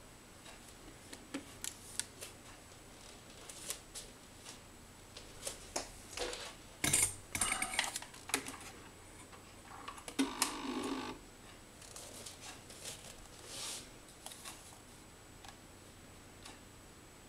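Small clicks and knocks from a handheld game controller being handled and its buttons pressed, with two short runs of the robot's stepper motors whirring, about seven and ten seconds in.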